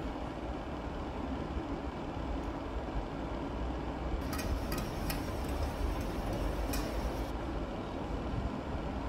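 Kitchen knife cutting a firm white vegetable on a plastic cutting board: a quick run of knife taps on the board about four seconds in and one more near seven seconds, over a steady low hum of background noise.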